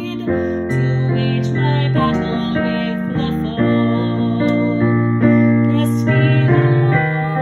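Keyboard playing a slow hymn accompaniment in held chords over a sustained bass line, the chords changing every second or so.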